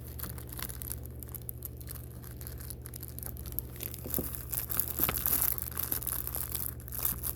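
Packaging crinkling and crackling as action-camera accessories and cables are pulled out of their box, in irregular handling bursts, loudest about five seconds in.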